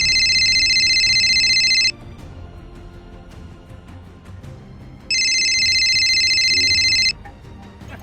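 A high, warbling electronic ringing tone, like a telephone ring sound effect, sounds loudly twice for about two seconds each, the second about five seconds in, over background music.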